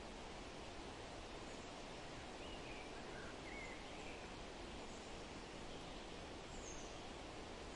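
Steady outdoor background hiss with a few faint, short bird chirps scattered through the middle and one more near the end.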